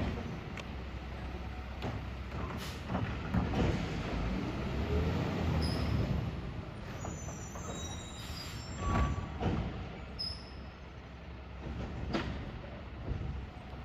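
Labrie Automizer automated side-loader garbage truck working: its engine running steadily, with intermittent clanks and knocks and a few brief squeaks.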